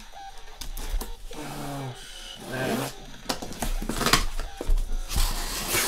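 A taped cardboard shipping case being cut and its flaps pulled open, with two spells of scraping, tearing noise: about four seconds in and again near the end.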